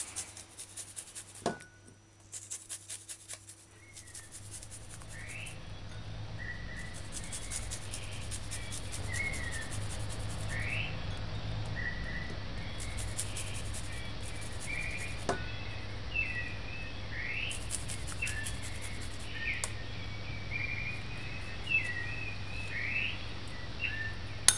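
Garlic cloves rasped over a flat metal hand grater in repeated strokes. A few seconds in, a low steady hum and a run of high, short, upward-gliding chirps come up behind the grating and stay to the end.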